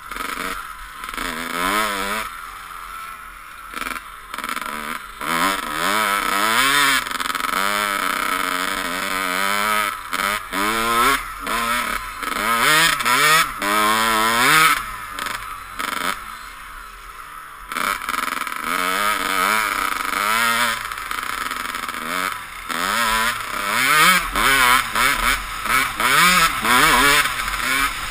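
Dirt bike engine revving up and down again and again, its pitch climbing and dropping with the throttle. It eases off briefly about three seconds in, and again for a couple of seconds past the halfway point.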